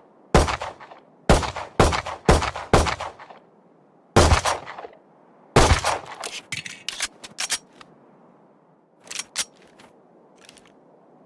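Handgun shots sound effect: five shots in quick succession, then two more at wider spacing, each with a short echoing tail. A run of lighter, quieter clicks and two smaller cracks follow.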